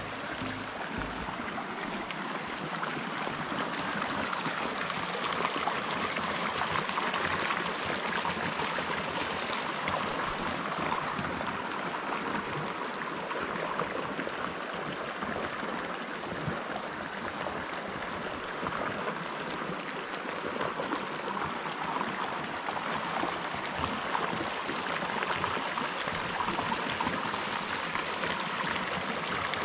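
Creek water running, a steady rushing and gurgling flow with no break.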